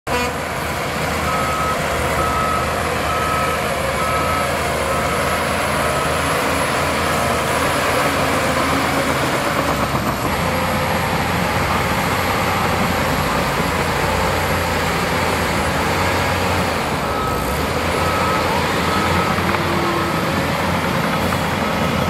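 Diesel engine of a Shantui crawler bulldozer running steadily under load while pushing soil. A reversing alarm beeps about twice a second near the start and again near the end.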